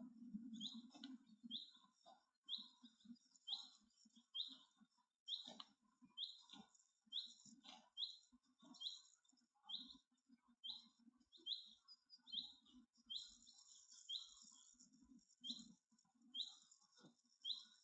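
Highland cattle chewing close by, heard as faint irregular munching, while a small bird calls over and over in short high chirps about one or two a second.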